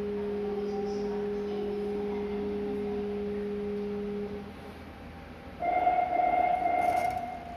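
Electronic door-closing warning tones at a subway stop. A steady low tone is held for about four seconds, then after a short gap a higher, louder tone sounds for nearly two seconds.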